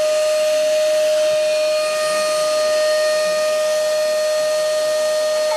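Canister vacuum cleaner running steadily: a constant high-pitched whine over the rushing hiss of air drawn through the hose.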